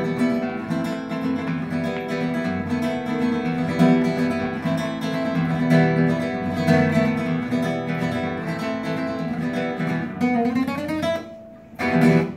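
Classical guitar played solo in flamenco style, with fast continuous plucking and strumming. Near the end the playing thins and drops away, then one loud closing chord rings out: the last notes of the piece.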